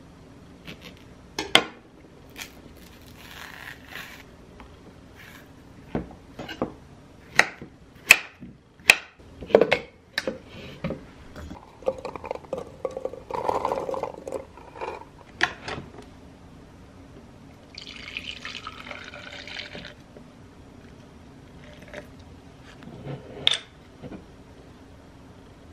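Kitchen prep sounds: a small knife cutting a banana against a wooden cutting board, and banana pieces and blueberries dropping into a plastic blender jar, heard as a run of sharp clicks and knocks. Milk is then poured into the jar, heard as a short hissing stretch of pouring in the second half.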